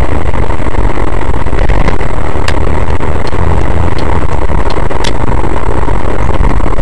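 Loud, steady road and engine rumble inside a moving car, picked up by a dashcam microphone, with several faint clicks between about two and five seconds in.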